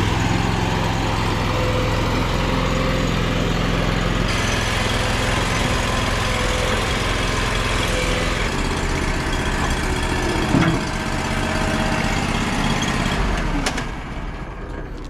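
A vehicle engine running steadily at idle, dropping in level near the end.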